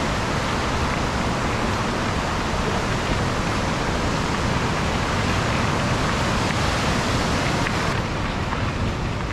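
A raging river's rapids: a steady rush of fast water, with a low rumble beneath.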